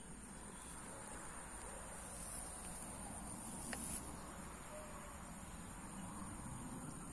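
Insects chirring steadily in a high, continuous drone, a little louder about two to four seconds in.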